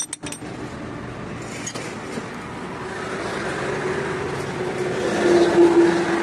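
Car driving, with steady engine and road noise and a humming tone that grows louder near the end.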